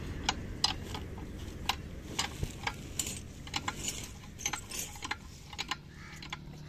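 A belt-driven pump rig at a new tubewell running with a low steady hum, punctuated by irregular sharp clicks about two a second.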